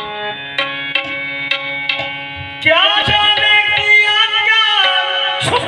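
Qawwali: harmonium notes over tabla strokes about twice a second, then a lead singer comes in about halfway with a long held, ornamented note, and again near the end.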